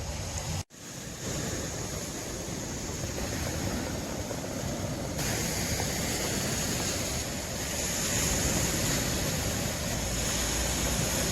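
Steady rushing of surf on the beach with wind on the microphone. The sound briefly cuts out and changes character twice, at about one second in and near the middle.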